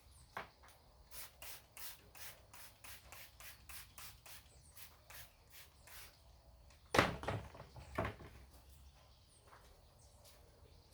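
Hand scrubbing of a grimy washing-machine part, short rubbing strokes at about three a second, then two heavier knocks about seven and eight seconds in.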